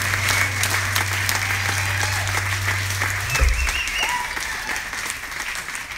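Audience applauding and cheering after a song, dense clapping with a few whoops. A low steady hum under it stops about three and a half seconds in with a short low thump, and the applause eases down toward the end.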